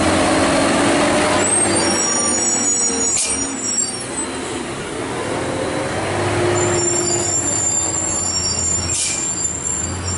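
Hino heavy truck's diesel engine running as it passes at low speed, with high-pitched brake squeal from about a second and a half in and again from about six and a half seconds in, each time with a short sharp hiss.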